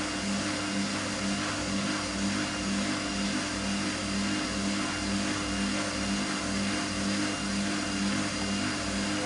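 Siemens 6127 front-loading washing machine spinning: the motor and drum run steadily at speed with a regular throb about twice a second. The machine shakes on the spin, which the owner puts down to its never regaining full stability after being moved and re-levelled.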